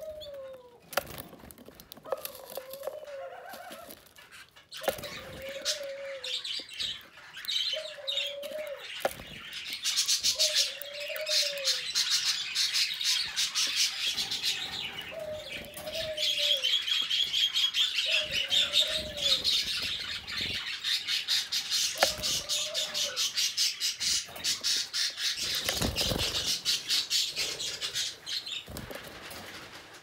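Canaries singing in long runs of rapid, high trills, with many sharp clicks mixed in. A lower, arched call repeats every two to three seconds through most of it.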